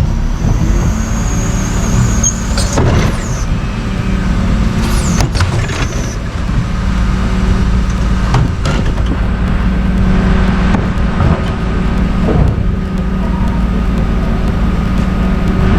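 Heavy truck engine running steadily, likely a garbage truck, with a high squeal near the start and several clanks and squeaks spread through.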